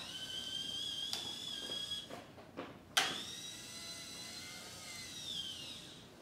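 Hobby servo motors in a 3D-printed robot arm whining as they drive the arm upward to its full raise. The whine comes in two runs with a click between them, and the second run drops in pitch as it stops near the end.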